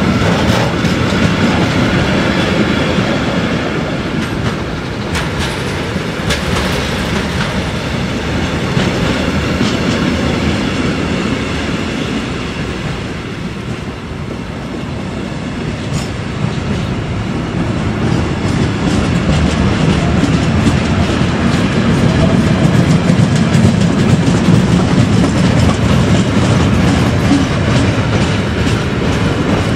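Wagons of a long mixed freight train rolling slowly past: a steady rumble of steel wheels on the rails, with wheels clicking over the rail joints.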